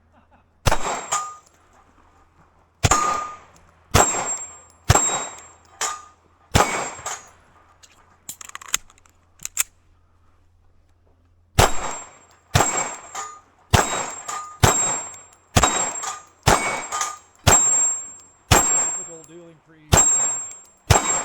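Shots fired in quick succession, each followed by the ring of a hit steel target. They come in two strings of about ten shots each, with a pause of about three seconds between them.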